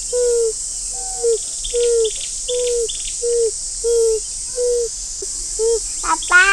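Steady high chirring of crickets or other insects, with a low hoot-like call repeating evenly about once every 0.7 seconds.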